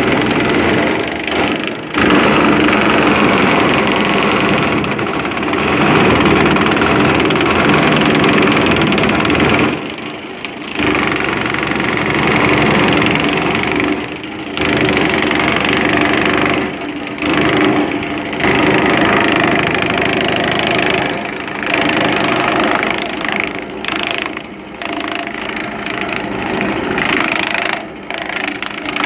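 Small engine driving a grass chopper, running steadily at speed, with brief dips in loudness every few seconds.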